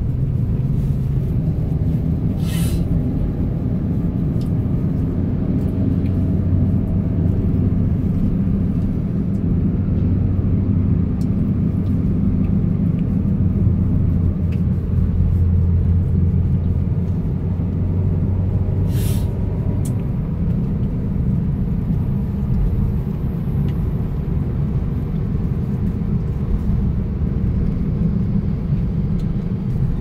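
A car being driven: a steady low engine and road rumble, with a faint rising engine note a few seconds in and two brief ticks.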